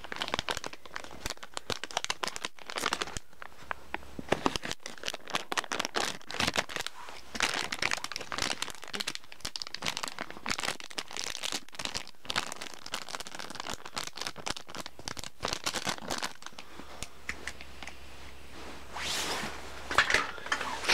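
Crinkly plastic toy packaging bag rustling and crackling in quick irregular strokes as it is handled and opened. The crackling thins out about two thirds of the way through, with a louder rustle near the end.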